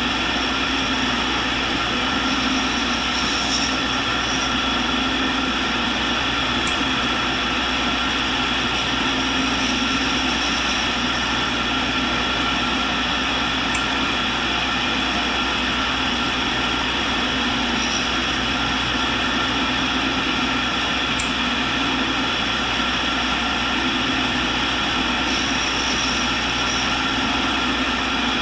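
Tool and cutter grinder running steadily while its wheel grinds the cutting end of a high-speed steel roughing end mill, taking off a burr on the secondary clearance angle. The sound swells slightly a few times as the wheel passes across the cutter, with a few faint ticks.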